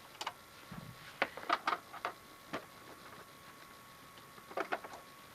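Scattered sharp clicks and light taps, about seven in all, some in quick pairs, from a screwdriver and screws being worked out of a DVD player's metal casing.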